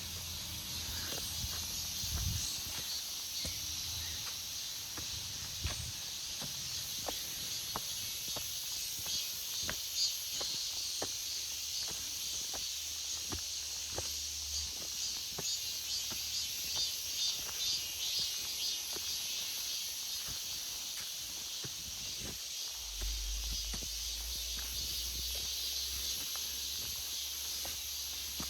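Cicadas chorusing in the trees, a dense, steady high-pitched buzz that pulses for a while in the middle, with scattered light clicks underneath.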